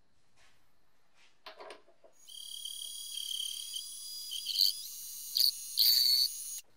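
Small metal lathe turning a steel wrench nut with a carbide insert tool. A high-pitched cutting whine starts about two seconds in, sharpens into louder squeals several times near the end as the tool bites, and cuts off suddenly. A couple of short knocks come just before the whine.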